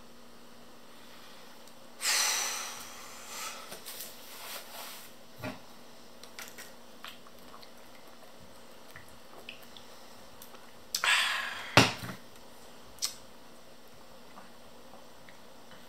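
A beer bottle opened with a sudden hiss about two seconds in, followed by small clicks and taps of handling. Later comes another short rush of hiss ending in a sharp knock, the loudest sound here.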